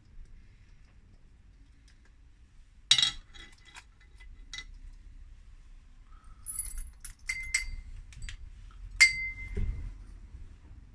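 Peppercorns poured from a pepper mill into a small bowl, falling in scattered sharp clinks, some of them leaving the bowl ringing briefly. There is a louder knock about three seconds in, and most of the clinks come in the second half.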